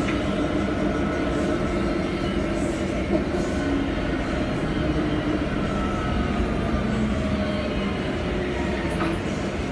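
Cabin noise of a Proterra Catalyst BE35 battery-electric bus under way: a steady road and body rumble with a faint electric drive whine that slides down in pitch about halfway through.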